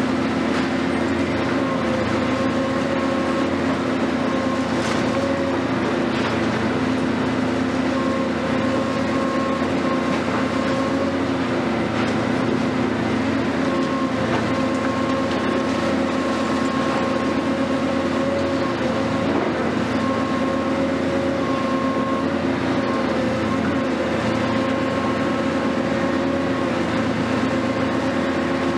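Hitachi 470 long-reach demolition excavator running steadily under hydraulic load: a droning engine-and-pump whine whose pitch dips slightly now and then, with a few faint knocks.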